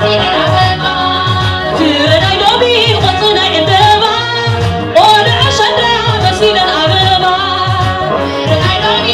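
Live Tigrinya Ashenda song: a woman singing into a microphone over a band of drum kit, electric bass, guitar and keyboard, with a steady driving beat. Her voice sweeps upward about two seconds in and again about five seconds in.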